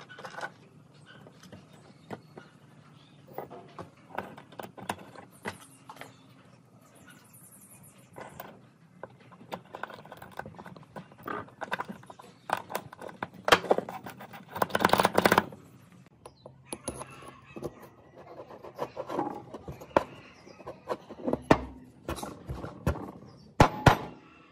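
Irregular clicks, clinks and knocks of small steel parts handled on a wooden workbench as a hammer drill's tool-holder is reassembled: locking balls and sleeve fitted, and a circlip worked on with pliers. A denser clatter lasts about a second midway, and a few sharper knocks come near the end.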